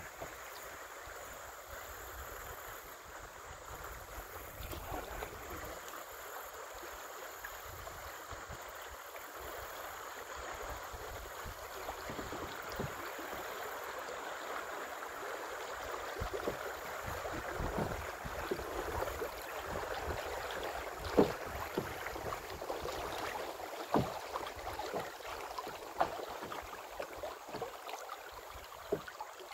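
Creek water rushing and splashing around a kayak drifting through a riffle, growing louder partway through. A few sharp knocks stand out near the end.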